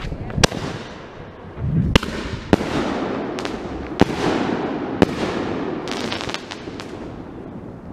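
Consumer fireworks going off. There are about ten sharp bangs at uneven intervals, roughly one every half second to a second, and each trails off into a crackling, echoing tail.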